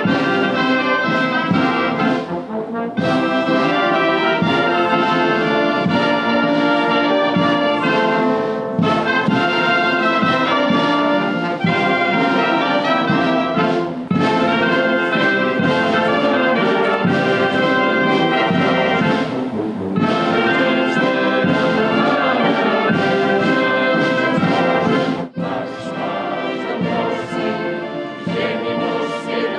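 Brass band music, with trumpets and trombones playing. The music breaks off sharply about 25 seconds in and carries on more quietly.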